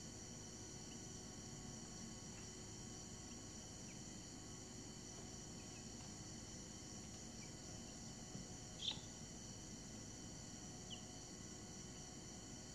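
Week-old chicks peeping now and then, a few short, scattered peeps, with one louder peep about nine seconds in, over a faint, steady high-pitched hum.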